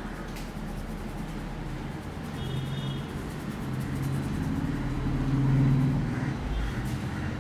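A motor vehicle's engine passing by, growing steadily louder to a peak near the end and then easing off.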